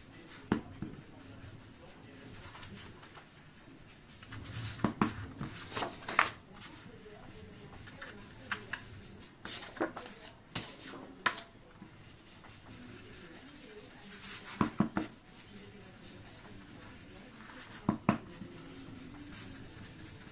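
Paper and craft materials being handled on a table: scattered taps, clicks and rustles, several coming in quick clusters.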